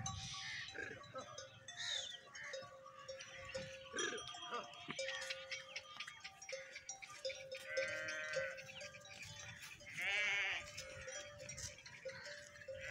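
Goats bleating: a wavering bleat about eight seconds in and a louder one about two seconds later, with more calls near the end, among the low sounds of grazing livestock.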